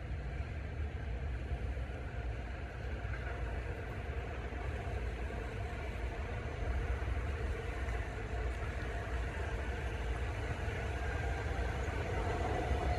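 New York City subway train approaching a station on the local track, its rumble slowly growing louder, with a faint whine coming up near the end.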